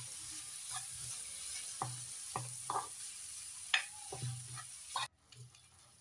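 Chopped tomatoes, onions and green chillies sizzling in hot oil in a frying pan while a metal spoon stirs them, clicking and scraping against the pan now and then. The sizzle cuts off suddenly about five seconds in.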